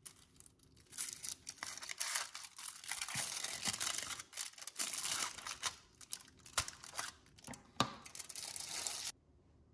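Thin foil chocolate wrapper being peeled open and handled, crinkling and rustling continuously, with a few sharp clicks in the second half. The sound stops abruptly near the end.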